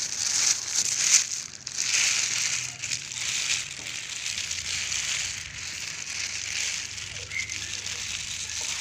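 Clear plastic bag crinkling and rustling as hands open it and fold it down from around a potted plant. The crinkling is louder in the first few seconds, then softer.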